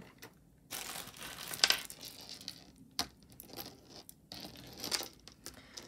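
Metal link necklace being handled: light clinks of the silver-tone links, with a stretch of rustling during the first half and scattered sharp clicks.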